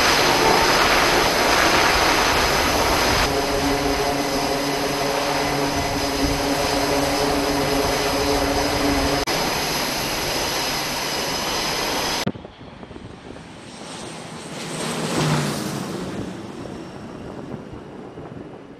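Twin Allison T56 turboprop engines of a carrier aircraft running at high power: a steady high turbine whine over a heavy propeller drone, with a pulsing propeller hum through the middle. About 12 seconds in it drops suddenly to a quieter, more distant aircraft engine sound that swells and fades.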